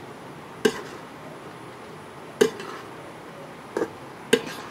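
A metal spatula knocking against a metal wok while stirring noodles: four sharp clanks at uneven gaps, two of them close together near the end.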